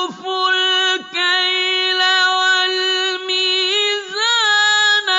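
Quranic recitation in Arabic: a single voice chants the verse calling to give full measure and weight in long, held melodic notes with ornamented turns, breaking off briefly for breath a few times.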